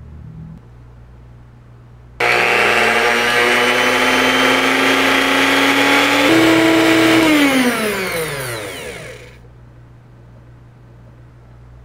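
Handheld electric whisk whipping cream in a glass mug. It switches on suddenly about two seconds in and runs with a whine that slowly climbs, jumps to a higher speed around six seconds, then is switched off and winds down over about two seconds.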